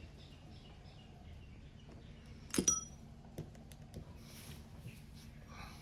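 A small metal object clinks sharply once on a hard surface about two and a half seconds in, with a brief metallic ring, followed by a few light ticks of handling.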